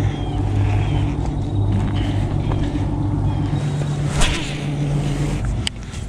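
A motor running with a steady low hum, which drops away about five and a half seconds in, with a few faint bird chirps early on and a sharp click just past four seconds.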